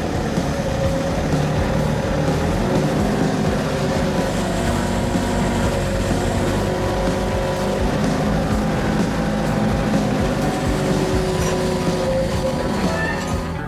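Snow groomer's engine running steadily.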